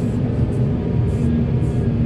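Heavy diesel machinery running, a steady deep engine rumble.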